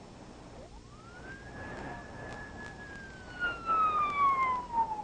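Police car siren wailing. It winds up quickly about half a second in, holds its high pitch, then slowly falls while growing louder toward the end.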